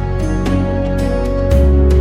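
Background music: soft, gentle instrumental with held notes, a deep bass and plucked notes.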